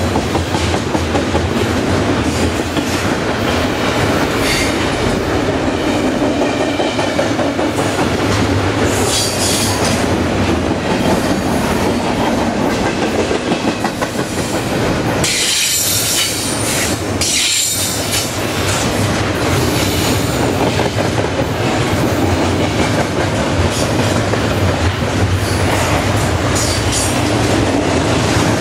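Double-stack intermodal container train passing at close range: steady rumble of the well cars' wheels on the rails, with bursts of high-pitched wheel squeal, the strongest about halfway through.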